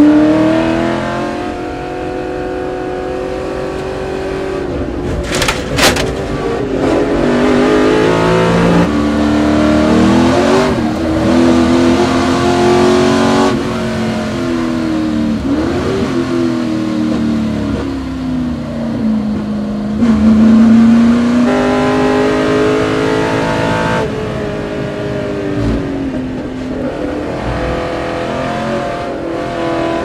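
Onboard engine sound of historic racing cars at speed, the engine note rising and falling with throttle and gear changes, and two sharp cracks about five seconds in. The sound changes abruptly several times as one onboard clip cuts to the next.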